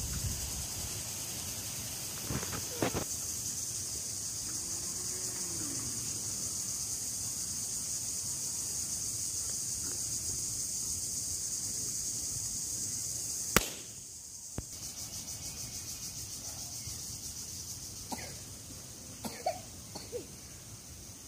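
A steady high-pitched insect chorus, with a few short breathy puffs and clicks from children blowing up long balloons. A sharp click comes about two-thirds of the way through, after which everything is quieter.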